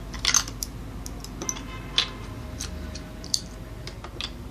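Light plastic clicks and clacks, a handful of separate ones about a second apart, as plastic toy coins are picked out of a toy cash register's open cash drawer.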